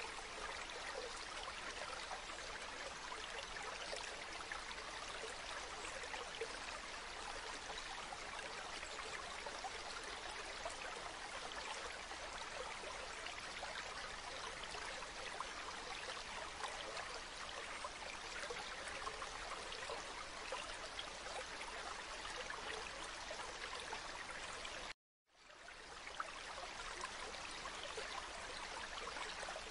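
Shallow stream of water flowing and trickling over pebbles, a steady, even burble. Near the end it cuts out for a moment and fades back in.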